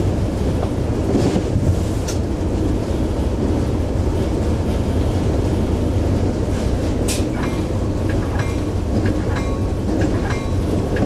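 Inside the cab of an EMD F59PH diesel locomotive under way: a steady low drone from the locomotive, with wheels clicking over the rail joints and a few sharp clicks.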